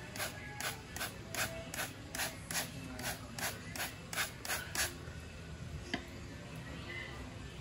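A hand trigger spray bottle squirting degreaser onto a greasy engine valve cover, with quick repeated pumps at about two to three a second, stopping about five seconds in. A single click comes about a second later.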